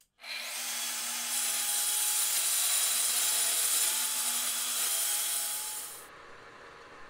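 Plunge-cut track saw running along its guide rail and cutting through a sheet of plywood, a steady loud whine that gets louder as the blade bites into the wood about a second in. It cuts off suddenly about six seconds in.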